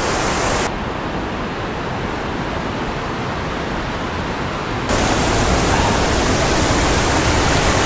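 Steady rushing water of a mountain stream and waterfalls. The rush turns duller and more muffled from about a second in until about five seconds in.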